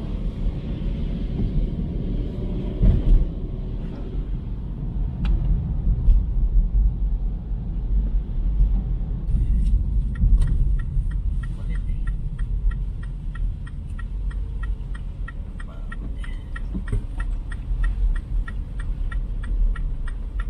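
Car in motion, heard from inside the cabin: a steady low rumble of road and engine noise. From about halfway through, a quick regular ticking joins it, two to three ticks a second.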